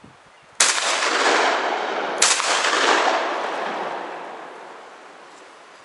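Two gunshots about a second and a half apart, each followed by a long rolling echo that fades away.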